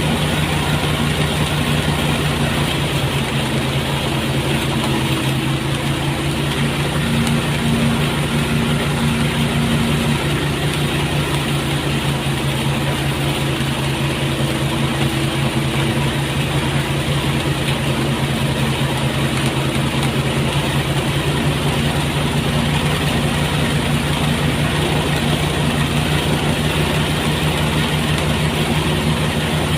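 Engine-driven rice threshing machine running at a steady speed, a constant mechanical hum that does not change.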